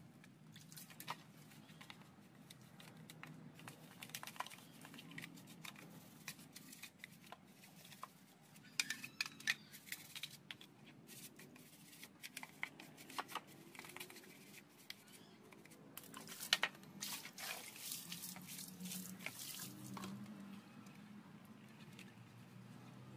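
Small brush scrubbing a wet plastic motorbike headlamp housing in soapy water: irregular scratchy strokes, with clicks and knocks of the plastic being handled and some wet squishing.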